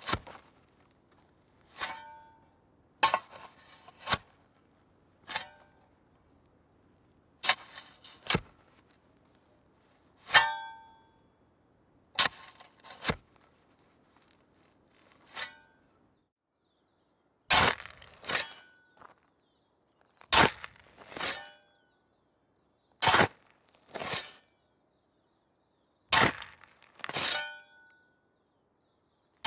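Metal spade digging: the blade strikes and scrapes into the ground in sharp hits, often in pairs about a second apart, every two to three seconds. Each hit carries a brief metallic ring.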